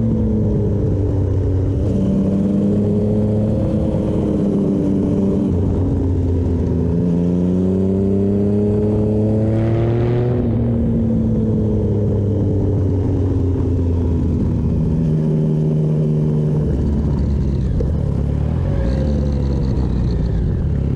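Triumph Speed Triple 1050's inline three-cylinder engine running hard while riding, its pitch climbing under acceleration and dropping back at gear changes and when rolling off the throttle, several times over.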